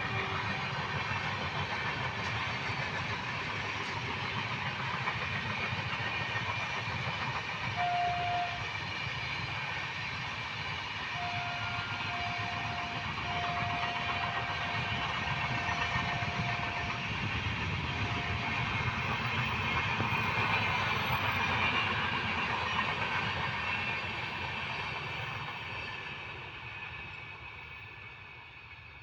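Indian Railways train running past with a steady rumbling noise. Its horn sounds one steady tone: a short blast about eight seconds in, then several short blasts and a long one between about eleven and seventeen seconds, and another short blast just after. The running noise fades away over the last few seconds.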